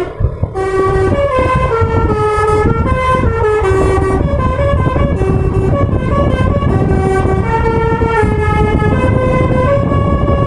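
Bus basuri (telolet) multi-tone air horn playing a tune in short held notes that step up and down, over a low engine rumble, with a brief break just after the start.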